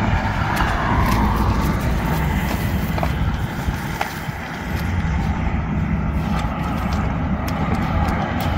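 Road traffic on the highway bridge alongside: a steady rumble of passing vehicles, dipping briefly about halfway through.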